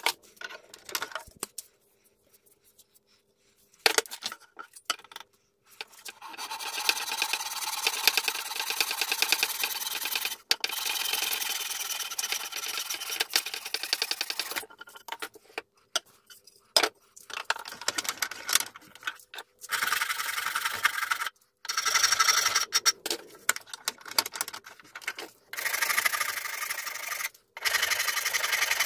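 Hand rasp scraping a wooden axe handle in fast back-and-forth strokes. It comes in several runs of a few seconds each, with short breaks between.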